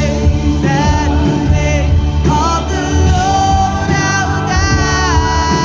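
Live worship band playing a praise song, a woman singing lead over electric guitars, bass and drums, with long held and sliding sung notes.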